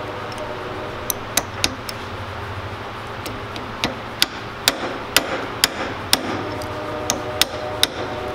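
A hammer tapping a small pin punch to drive a tight retaining pin out of an MG overdrive's planet gear carrier: a series of sharp metal-on-metal taps, uneven in spacing and about two a second at times, starting about a second in. The pin is stuck and comes out only under repeated blows.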